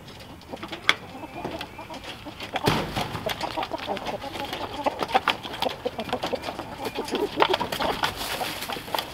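A sharp click about a second in, then a flock of chickens clucking and moving about as they come out of their mobile coop.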